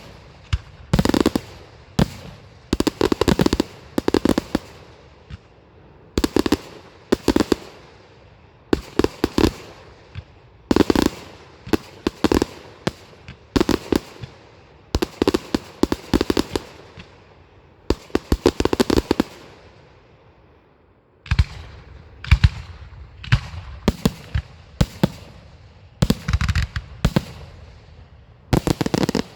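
Fireworks display: clusters of sharp bangs and rapid crackles going off every second or two, with a short lull about twenty seconds in before the bangs resume.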